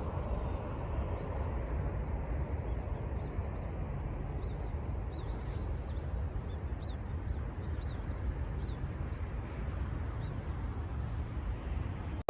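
Steady rush of river water with a low wind rumble on the microphone, while small birds chirp faintly and repeatedly.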